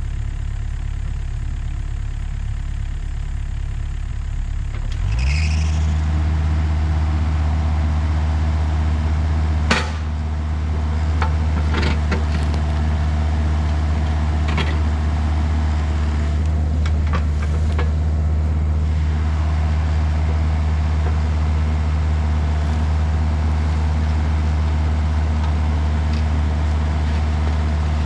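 Volvo EC35C mini excavator's diesel engine rising from idle to working speed about five seconds in, then running steadily as the machine digs at a black locust stump, with a sharp knock about ten seconds in and a few lighter knocks and scrapes after.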